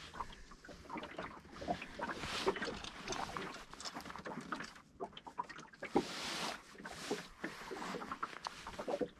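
Small waves lapping and slapping irregularly against the hull of a wooden boat drifting on choppy lake water, with scattered knocks and a brief rushing splash about six seconds in.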